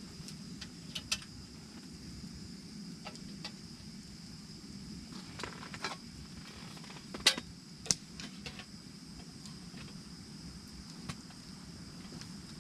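Scattered light clicks and knocks, with two sharper ones about seven and eight seconds in, over a steady faint high whine and a low rumble.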